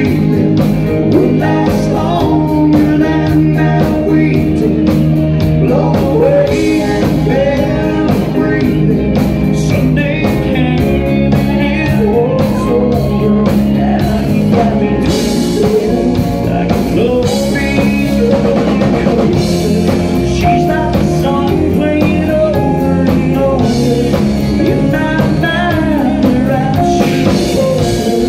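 A live band playing a song: a male lead singer over electric bass and a drum kit keeping a steady beat.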